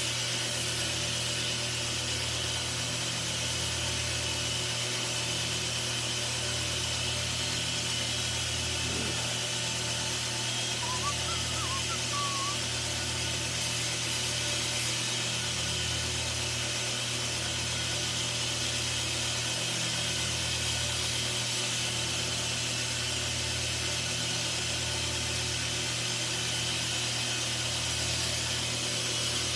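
A steady motor hum, like a running power tool or fan, with a brief faint chirp about eleven seconds in.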